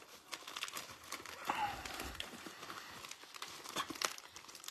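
Plastic wrappers of basketball trading-card packs crinkling, with scattered light clicks and taps, as the packs are handled and sorted by hand.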